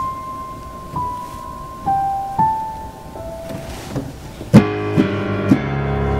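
Yamaha electronic keyboard played with a piano sound: a slow melody of single held notes, then loud full chords struck about four and a half seconds in and left to ring.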